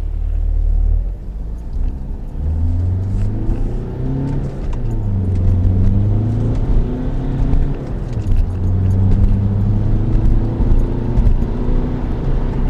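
2011 Volkswagen Jetta TDI's four-cylinder turbodiesel pulling under acceleration through its six-speed manual gearbox, the engine note rising and then dropping back several times as it is shifted up through the gears, heard from inside the cabin.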